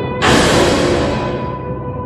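Tense, ominous film score built on a sustained drone of held tones. About a fifth of a second in, a sudden noisy crash-like hit comes in and dies away over about a second and a half.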